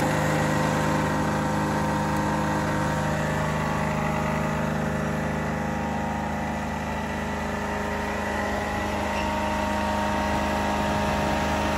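Kubota diesel engine of a Ditch Witch FX30 vacuum excavator running steadily at a constant speed.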